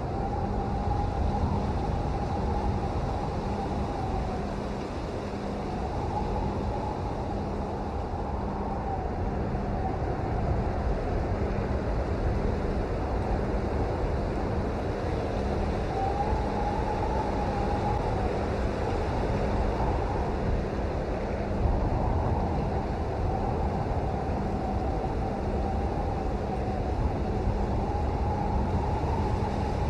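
Steady rainfall: a dense, even hiss and rumble, heaviest in the low end, with a faint wavering tone running underneath.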